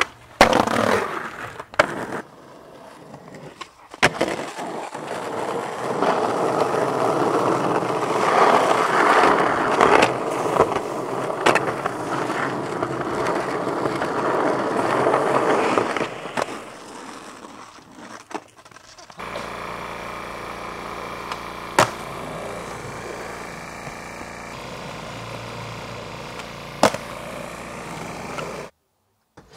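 Skateboard wheels rolling over pavement, with sharp clacks of the board hitting and landing in the first half. The last third is a quieter steady hum with a couple of sharp clicks.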